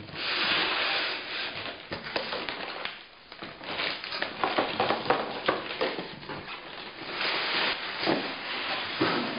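Cardboard box being opened by hand: the lid sliding and scraping over the box in the first second or so, then a plastic bag crinkling and rustling, with small knocks, as the bagged inner box in foam end caps is pulled out.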